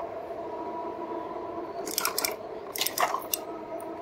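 Electric fat-tire bike riding on beach sand: a steady whine from the RadMini's rear hub motor, with a few sharp metallic clicks and rattles from the bike about two seconds in and again around three seconds in.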